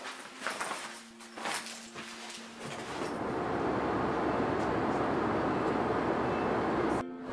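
A few rustles and clicks of a suitcase being packed. Then the steady rushing noise of an airliner cabin in flight comes in about three seconds in. It breaks off for a moment near the end.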